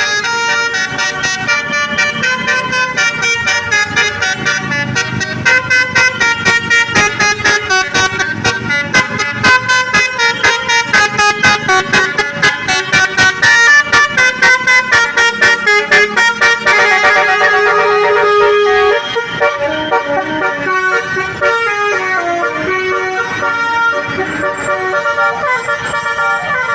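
Bus Basuri telolet horn playing a loud multi-note tune of chord-like toots, with a long run of rapid staccato blasts through the middle and rising and falling slides in the last third.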